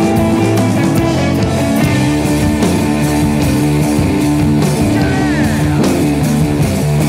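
Rock music played by a full band: electric guitar over bass and drums, with a steady beat.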